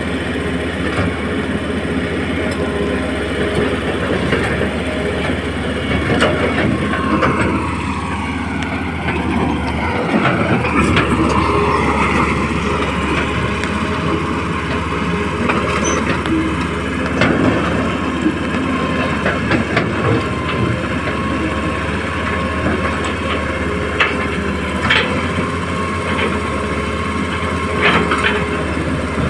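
Hitachi excavator running steadily under load. Around a third of the way in its hydraulic whine sags and then climbs back, and several sharp knocks sound, mostly near the end.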